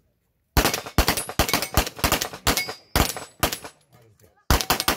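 Rapid handgun fire from two shooters at once, starting about half a second in: fast strings of sharp shots, a short pause near four seconds, then another quick string.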